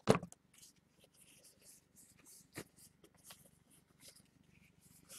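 Faint handling noise: soft rustles and light clicks, with a sharper click right at the start and another about two and a half seconds in.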